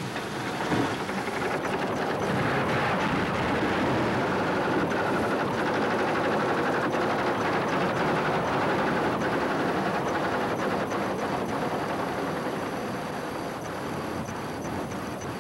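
Steady helicopter engine and rotor noise heard from aboard the aircraft, a loud rushing din that swells over the first couple of seconds and eases slightly near the end.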